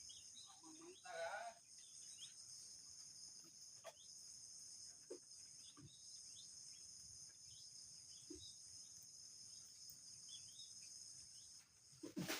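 Steady, high-pitched chorus of insects, faint, with a few soft knocks and clicks scattered through it.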